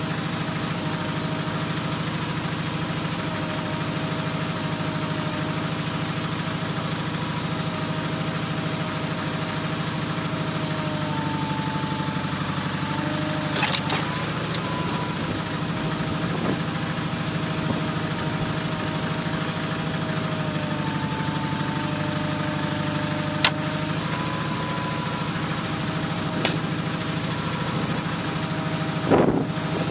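Ingersoll garden tractor's engine running steadily at idle while its backhoe hydraulics lift the engine out, with a tone whose pitch steps up and down twice as the boom works. A few short metallic knocks, the loudest near the end.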